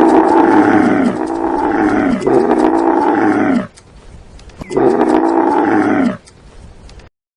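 A cow mooing three times in long, drawn-out calls, the first two back to back, each dropping in pitch at its end.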